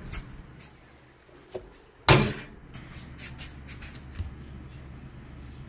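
A single loud bang about two seconds in, then a few light clicks of a spoon stirring in a soup cup and a small knock just after four seconds, over a low steady hum.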